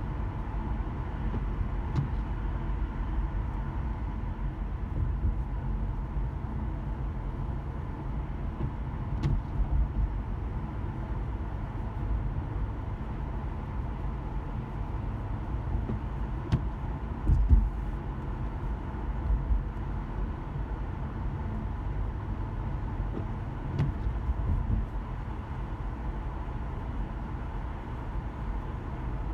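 Car in slow traffic, heard from inside the cabin: a steady low rumble of engine and tyres, with a few faint ticks and one louder thump about seventeen seconds in.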